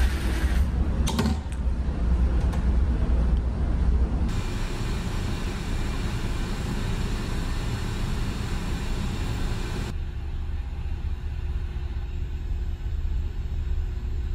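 Steady low drone of a ferry's engines and machinery heard inside the ship. The background changes abruptly about four and ten seconds in.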